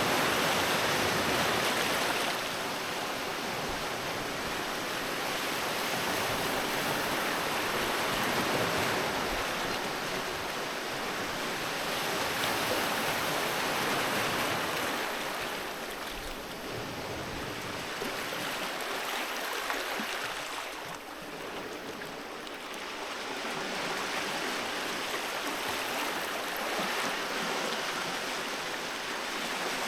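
Sea waves washing onto the shore: a steady rush of surf that swells and eases, growing quieter about two-thirds of the way through before building again.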